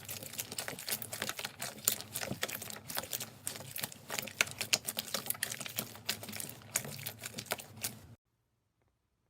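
Slime being squeezed and worked by hand, a dense run of crackling, popping clicks that cuts off abruptly about eight seconds in.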